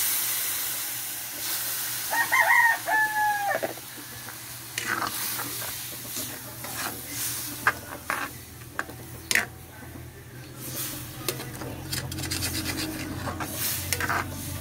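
A rooster crows once, about two seconds in, loudest of all. Then a metal ladle scrapes and clicks against the wok while chicken pieces are stirred in coconut milk.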